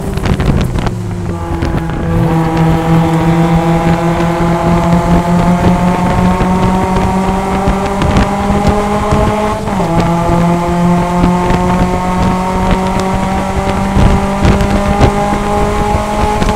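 Mazda MX-5 Cup race car's four-cylinder engine, heard from inside the cockpit. It drops in pitch through downshifts under braking at the start, then accelerates hard with the revs climbing. There is one upshift about ten seconds in, and the revs climb again after it.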